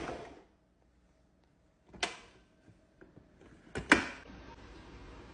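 A sharp knock about two seconds in, then a quick double knock a little before four seconds, the loudest of them, over faint room noise.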